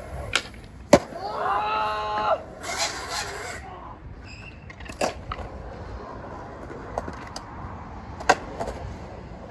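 Skateboards on concrete: wheels rolling, with several sharp pops and clacks of boards snapping and landing. The loudest is about a second in, followed by a drawn-out shout.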